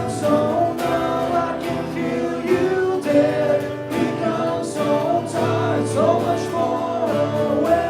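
Live music: a singer with guitar accompaniment, the melody held and sliding over steady strummed chords.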